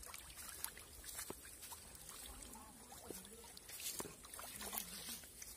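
Water splashing and dripping around a bamboo-framed hand net lifted in shallow pond water, with small fish flicking in the mesh: scattered short splashes and ticks over a light trickle. A faint wavering voice-like sound rises and falls in the background in the latter half.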